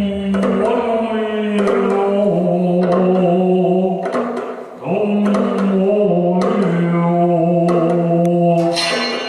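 A man's voice chanting long, steady tones close into a microphone, in two long phrases with a short break about halfway through. This is experimental sound-poetry vocalising, not words, and it carries a few faint clicks.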